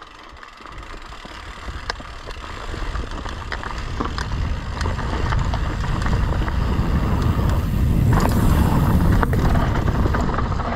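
Fezzari Cascade Peak mountain bike riding a dirt trail: a low rumble of tyres and wind on the microphone, growing louder as the speed builds. Sharp clicks and rattles come from the bike over rough ground.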